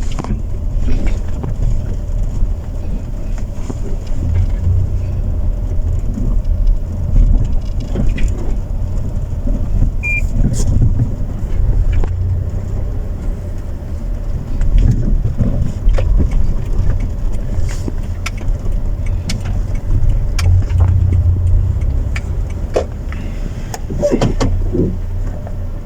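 Steady low rumble of a car, with scattered light clicks and knocks.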